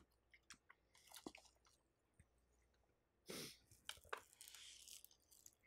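Near silence with faint, scattered mouth clicks of someone chewing food, and a short breathy rustle a little past three seconds in.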